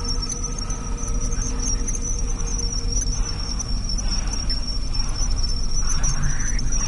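A steady, high-pitched insect-like chirring trill over a low droning rumble, cut off abruptly at the end.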